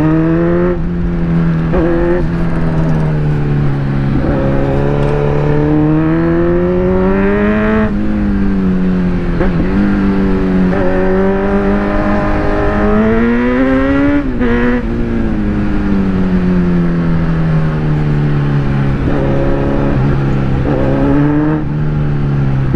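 Kawasaki Z900's inline-four engine running through an aftermarket exhaust while riding, loud. Its pitch rises twice as the throttle is opened and falls back off-throttle, with steadier cruising in between.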